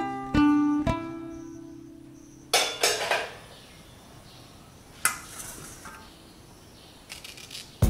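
A few plucked guitar notes ring out and fade over the first couple of seconds. Then quieter kitchen sounds follow: a brief clatter, a sharp click, a couple of small clinks and light knocks of dishes and utensils handled at a counter.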